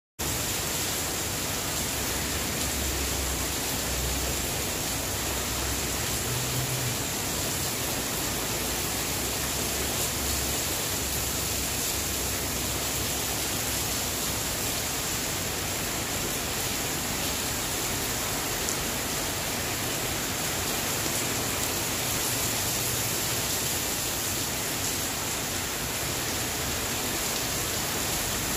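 Heavy rain falling steadily: an even, constant hiss of a downpour.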